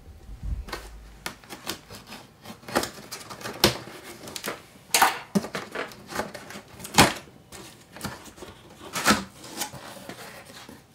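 Cardboard shipping box being opened by hand: the packing tape on the top seam is pulled and torn in a run of short, sharp rips and crackles, about six loud ones, with the cardboard flaps opened near the end.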